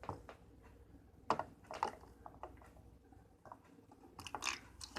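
Scattered clicks, rustles and squishy handling noises as wet brownie mix is transferred into a plastic microwave baking pan, with a busier patch of rustling near the end.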